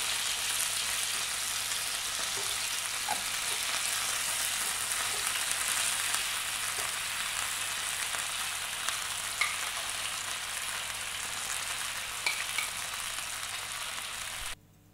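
Marinated chicken tikka skewers sizzling steadily in hot oil in a frying pan as a spoon spreads marinade over them, with a few light clicks. The sizzle cuts off abruptly just before the end.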